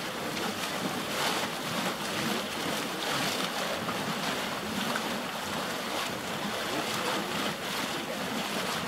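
Cold-water geyser, a gas-driven mofette spring, bubbling and churning in its basin: water surging up in a low white mound rather than a tall column, making a steady rushing splash.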